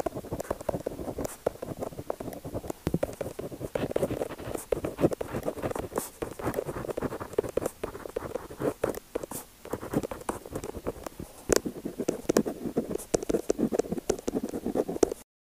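Pen tip scratching and tapping on paper in quick, irregular strokes. The sound cuts off suddenly just before the end.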